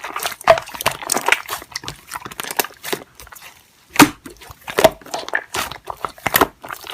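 Slime being squeezed and pressed by hand: irregular sharp clicks and sticky pops, the loudest about four seconds in.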